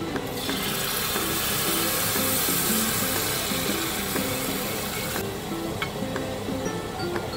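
Tomato purée hitting hot garlic oil in an enamelled cast-iron pan, sizzling loudly, then cutting off about five seconds in. Background music plays throughout.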